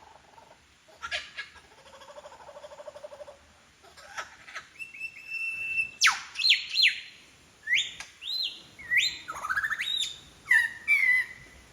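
Superb lyrebird singing a medley of mimicked bird calls: a rapid low rattle, then a held whistle, then loud sweeping whistles that drop sharply in pitch, followed by looping rising-and-falling notes.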